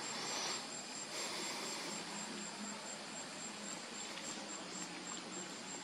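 Insects, typical of crickets, calling in a steady chorus of high, evenly pulsed chirps. A brief rush of hiss comes in the first two seconds.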